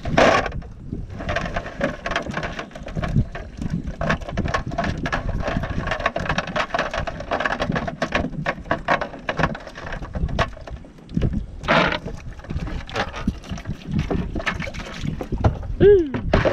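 Wind on the microphone and boat-deck noise, with irregular clicks and patters as a wet cast net is shaken out over a bucket and its weights and line are handled. A short call falling in pitch sounds near the end.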